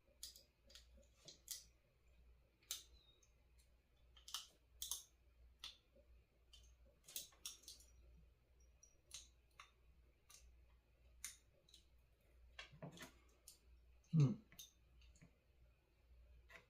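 Faint, irregular small clicks and taps of a chip's pins being worked and pressed into their holes on a kit circuit board, with a duller thump about fourteen seconds in.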